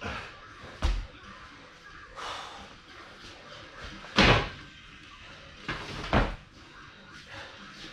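Thuds from box jump burpees: hands and feet hitting the floor and landing on a plyo box, about five impacts at uneven spacing, the loudest about four seconds in.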